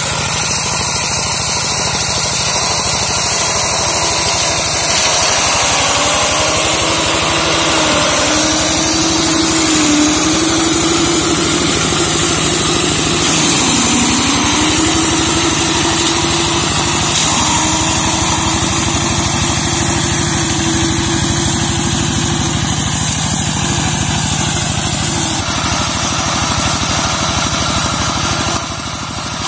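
Single-cylinder diesel engine of a walk-behind two-wheel tractor running steadily while it drives a brush-mowing attachment through undergrowth. Its pitch sags briefly a few times in the middle.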